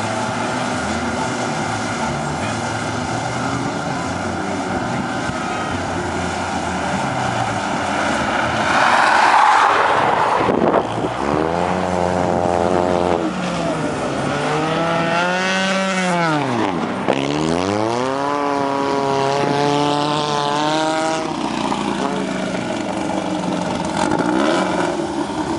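Off-road race car engines running on a dirt track. About nine seconds in there is a loud rushing pass. After that an engine revs up and down several times, its pitch rising and falling.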